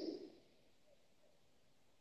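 Near silence: room tone, with the tail of a breath out fading away in the first moment.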